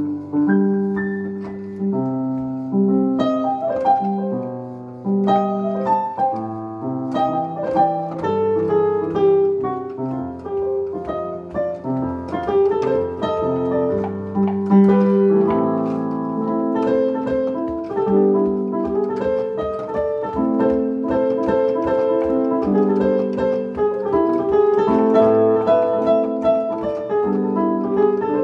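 Digital keyboard played in a piano voice: a continuous stream of notes, with a higher melody over lower notes.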